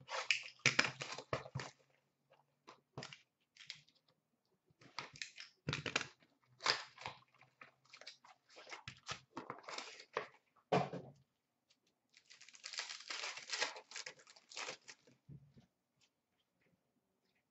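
Hockey card boxes and packs being handled and opened: scattered cardboard taps and rustles, then a few seconds of tearing and crinkling about twelve seconds in.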